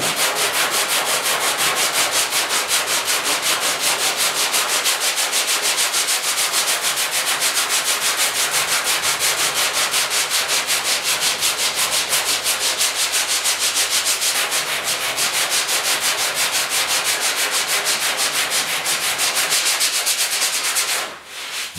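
Hand sanding half-set body filler with 80-grit sandpaper on a sanding block: a steady rasping scrape in quick, even back-and-forth strokes. The sanding stops near the end.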